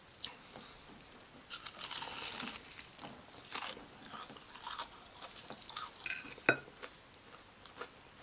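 Biting into and chewing crispy-coated homemade fried chicken, the coating crunching and crackling irregularly, with one sharp loud crack about six and a half seconds in.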